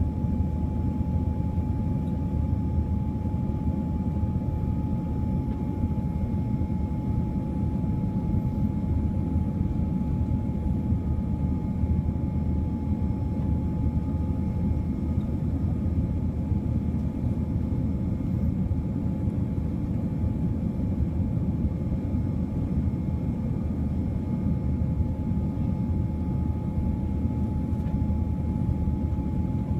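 Steady airliner cabin noise heard from a seat inside a Boeing 787-9: a low, even rumble of engines and airflow with a thin steady whine over it.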